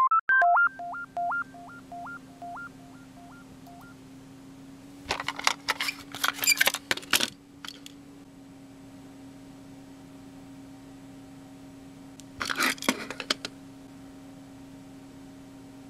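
A short electronic jingle of beeps stepping between two pitches fades out over the first few seconds. Then comes plastic clattering and clicking as a cassette tape is handled and turned over on a wooden table, in two bursts, over a steady low hum.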